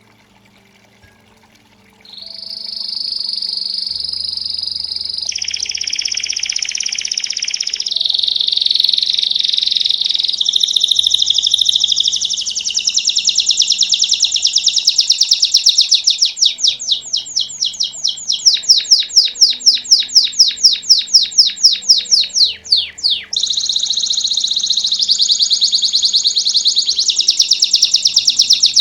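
A Belgian domestic canary singing its 'campainha' (bell) song, which begins about two seconds in: long high whistled rolls, then loud, fast trains of repeated notes.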